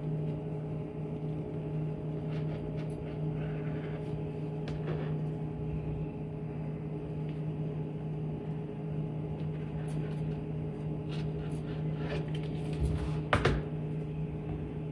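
A kitchen knife slicing through soft sandwich bread onto a plastic cutting board, with faint scrapes and light taps, over a steady hum. About 13 seconds in, a louder knock as the knife is set down on the board.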